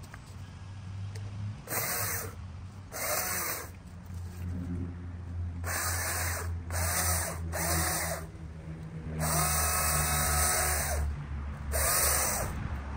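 Hedge trimmer cutting shrubs in seven short bursts, the motor spinning up with a brief rise in pitch each time it is triggered. The longest burst, about two seconds, comes past the middle.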